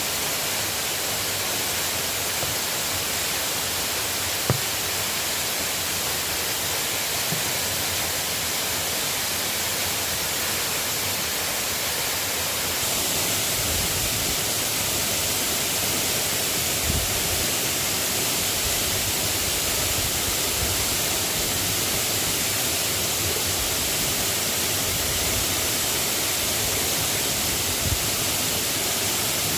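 Steady hiss of light rain falling, with a few isolated sharp taps such as drops landing close by.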